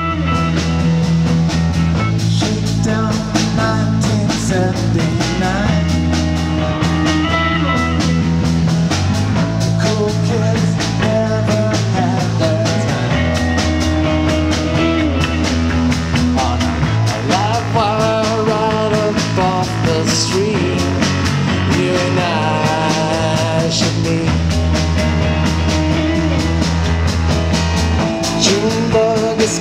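Live rock band playing an instrumental passage: electric guitar over drums, keyboard and a low bass line that changes note every few seconds, with some guitar notes bent up in pitch.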